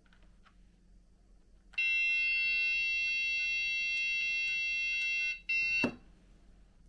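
High-pitched electronic buzzer tone, held steady for about three and a half seconds, then cut off and sounding again briefly before stopping with a click.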